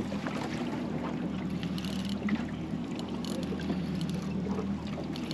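A boat's engine running at idle with a steady low hum, over a wash of water and scattered light clicks.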